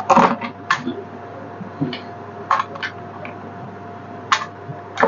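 Irregular small clicks and taps of a screwdriver and screws on the metal frame of an iMac all-in-one as an SSD is being screwed in place, over a faint steady hum.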